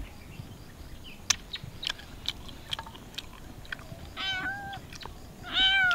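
A kitten meowing twice: one call about four seconds in, then a louder one near the end. Before the calls there are scattered small clicks and crunches of someone chewing.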